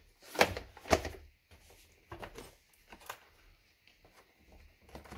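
Hands handling the opened plastic housing of a Philips Senseo coffee maker: short plastic clicks and knocks, the two loudest within the first second, then quieter scattered taps and rustles.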